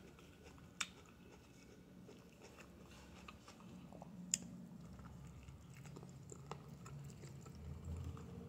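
Faint chewing and mouth sounds of a person eating stewed chicken with her mouth closed, with a few soft clicks; one sharper click comes about four seconds in.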